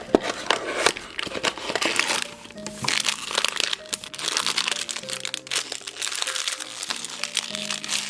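Blind-box packaging crinkling and rustling as it is torn and unwrapped, in quick irregular bursts, over background music with held notes.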